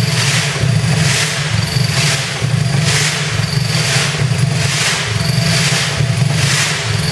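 Ingersoll-Sergeant steam-driven air compressor running steadily, a low mechanical hum broken by a rhythmic hissing puff about once a second.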